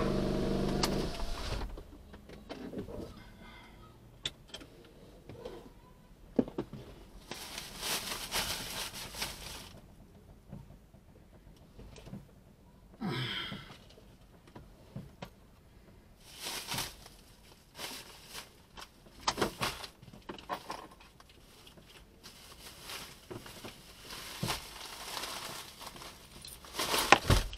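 Sporadic rustling, crinkling and light clicks inside a stationary car's cabin, with quiet stretches between.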